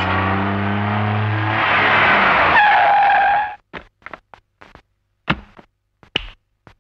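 Film soundtrack of a car pulling up: a steady engine-like drone with a held squealing tone as it stops, cut off suddenly about three and a half seconds in, then a scatter of short knocks and taps from the car door and footsteps.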